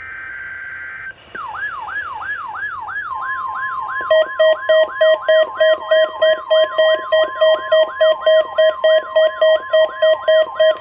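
NOAA Weather Radio weekly-test alert, with several weather radio receivers going off at once. It opens with the end of a SAME data burst, then a falling siren-like sweep about three times a second, the steady 1050 Hz warning alarm tone from about three seconds in, and a pulsing beep about three times a second from about four seconds in, all overlapping.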